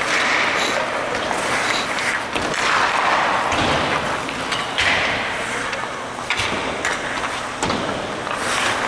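Ice hockey skates scraping and carving the ice in repeated swells, with sharp knocks of sticks and pucks, some hitting the boards.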